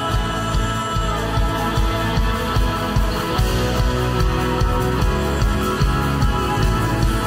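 Live worship band music with electric guitar and bass guitar over a steady beat.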